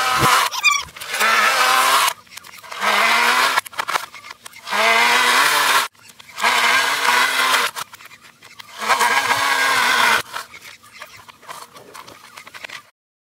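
Toro electric power shovel's motor whining in bursts of a second or so, its pitch wobbling up and down as it bites into snow, with quieter gaps between bursts; it stops shortly before the end.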